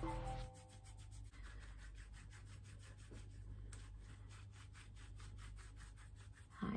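Faint rubbing: a run of soft, evenly spaced scratchy strokes over a low steady hum.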